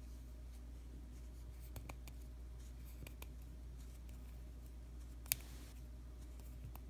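Fingers twisting and rolling a strip of cotton wick: faint rustling and small scattered clicks, with one sharper click about five seconds in, over a low steady hum.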